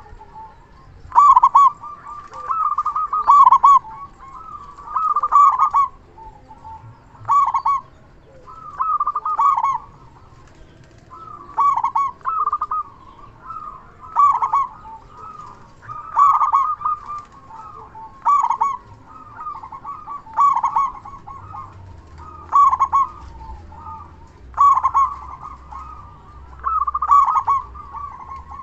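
Zebra dove (perkutut) cooing, a loud, deep-voiced local bird repeating its rolling call about every two seconds.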